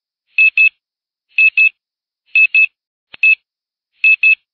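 A handheld squeaky toy squeezed about once a second. Each squeeze gives a short, high squeak, mostly in quick pairs, five times in all.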